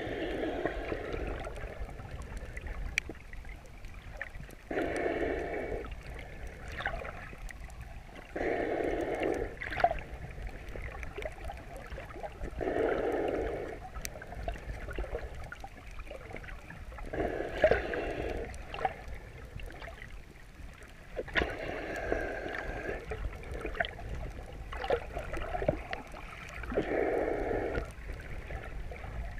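Slow, regular breathing of the swimmer wearing the camera, heard muffled underwater: a breath lasting a second or two about every four seconds, over a steady low water rumble, with scattered sharp clicks.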